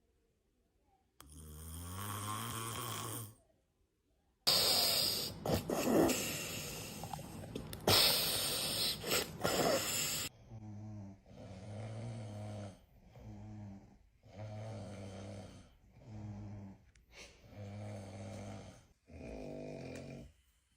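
Snoring: one long snore, then a louder, noisier stretch of about six seconds with sharp clicks in it, then a steady run of about seven short snores, each about a second long.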